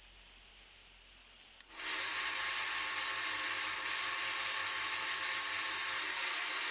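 Electric coconut grater switched on with a click about a second and a half in, its motor and grating roll then running at a steady high speed with a whirring whine.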